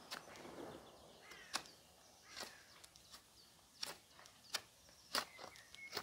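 A Cold Steel SR1 Lite folding knife's blade chopping at a thin upright wooden stick: about seven sharp knocks at uneven intervals, roughly a second apart.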